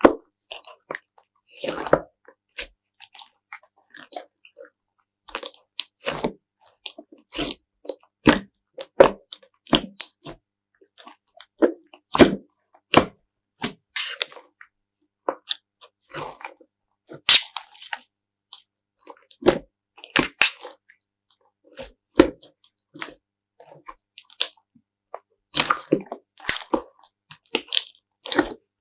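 Slime being squeezed and pressed close to the microphone: irregular short crackling squelches and pops, about one or two a second, with silent gaps between.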